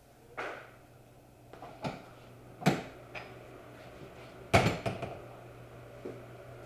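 A handful of sharp clunks and knocks, spread unevenly, the loudest about four and a half seconds in, over a steady low hum.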